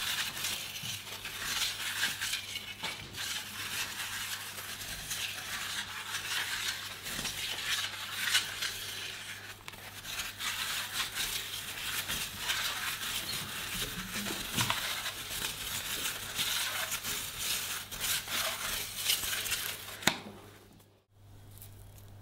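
Metal scraper shaving curls off a frozen fruit ice cream roll: a continuous crackly scraping full of small ticks, stopping abruptly about twenty seconds in.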